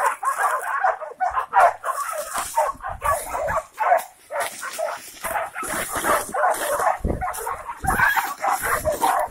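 Several hunting dogs barking and yelping in a dense, overlapping clamour with no pause, set on a wild boar.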